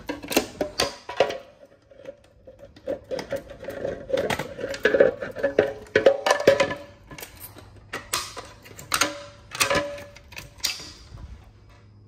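A bunch of metal keys jingling and clicking against a fire alarm pull station and its clear plastic cover, as the station is worked with its reset key: a run of sharp clicks and jangles in several clusters, stopping about a second before the end.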